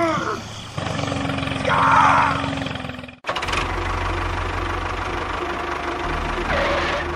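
A small engine running with a steady, rhythmic chug. It breaks off abruptly about three seconds in, then resumes.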